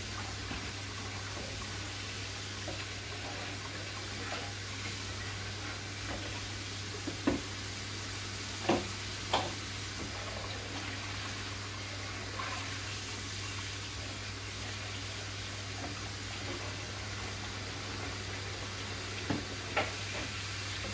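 Kitchen tap running steadily while dishes are handled, with a steady low hum underneath. A few sharp clinks of dishes come about seven to nine seconds in and twice more near the end.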